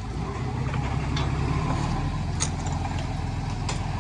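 Heavy machinery's diesel engine running steadily at a low, even pitch, with three short, sharp clicks at about one-second intervals.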